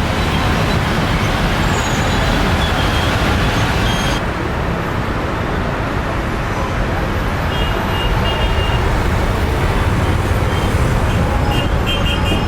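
Steady, loud rumbling noise of engines with a hiss on top, its highest hiss dropping away about four seconds in.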